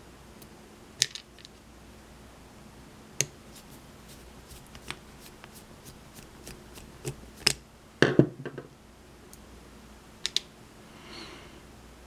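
Sharp metal clicks and taps from a flathead screwdriver working the back of a brass lock cylinder. The clicks come scattered, with the loudest cluster of knocks and rattles about eight seconds in.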